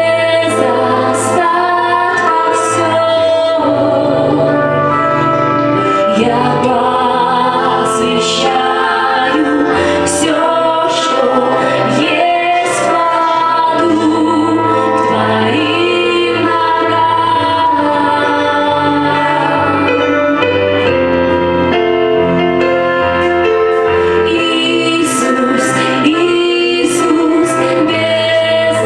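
Christian worship song: female singing with a choir over musical accompaniment, playing continuously.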